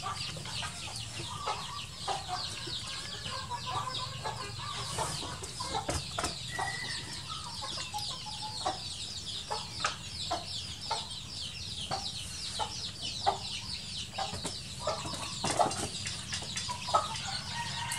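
Chickens clucking with constant high, rapid chirping behind them and scattered short knocks.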